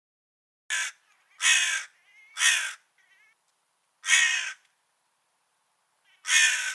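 Crow cawing: five caws, the first one short and the rest about half a second each, the last two spaced out after a pause of over a second.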